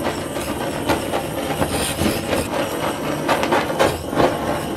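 Handheld kitchen blowtorch burning with a steady hiss of flame as it sears the sauce on sliced pork trotters.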